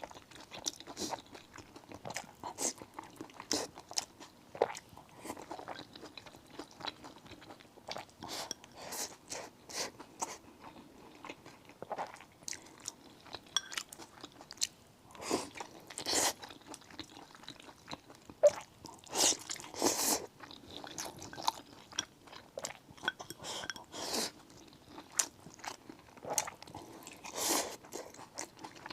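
Close-miked eating: a person biting and chewing food, with irregular sharp, crisp bites and wet mouth clicks, louder clusters of bites about halfway through and again near the end.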